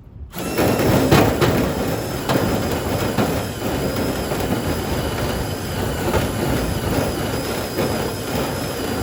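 Cordless impact driver hammering continuously, forcing a screw through sheet aluminum into the tough truck bed; it stops near the end.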